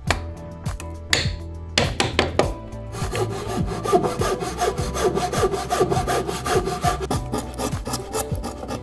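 A few sharp hammer taps on wood, then a Japanese handsaw cutting across the end of a wooden board in quick back-and-forth strokes for about four seconds, with a few knocks near the end.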